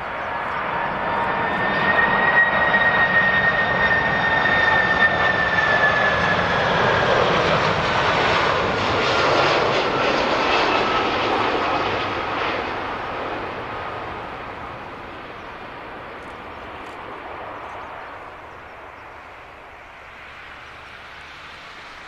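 Jet airliner passing by, its engine noise swelling over the first couple of seconds, loudest for about ten seconds, then fading away. A high engine whine slides down in pitch as the aircraft goes past.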